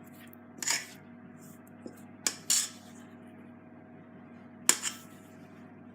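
About five short clatters and scrapes of kitchen utensils and bowls, in pairs, over a faint steady hum.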